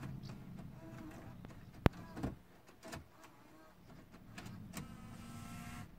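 A sharp click about two seconds in, followed by a couple of softer knocks and faint handling noise.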